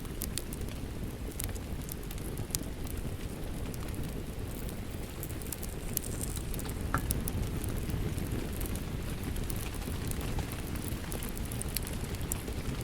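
Wood fire crackling with scattered sharp pops, over a steady low rush of rain.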